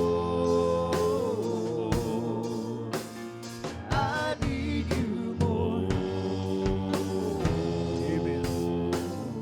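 Live worship band music: a slow praise song with sustained chords, a steady drum beat and a voice singing a wordless melodic line about four seconds in.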